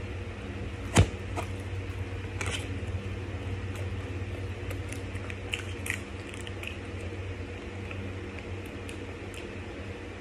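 Hands handling fried chicken and a plastic sauce packet. There is a sharp tap about a second in, then small crinkles and clicks as the packet is opened and squeezed, over a steady low hum.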